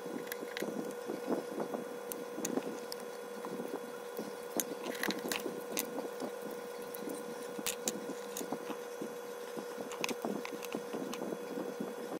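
Light clicks and taps as small rubber and metal blender drive-coupling parts are handled on a wooden floor, over a steady background hum.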